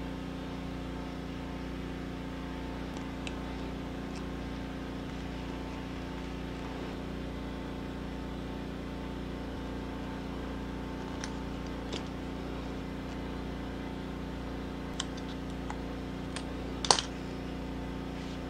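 Steady low hum with a few light, scattered clicks and taps, the sharpest about a second and a half before the end. The clicks come from small hand tools, a utility knife and a pencil, handled while aluminium foil tape is laid onto and trimmed on a coconut lure body.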